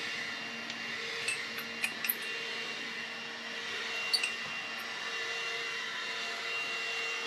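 Steady whining drone of a neighbour's leaf blower, with a few light metallic clinks.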